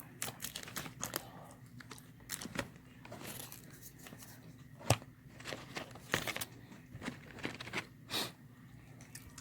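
Close-miked eating of Chick-fil-A fried chicken: crisp crunchy bites and chewing mixed with the crinkle and tear of paper wrapping, a scattering of sharp crackles with the sharpest about five seconds in.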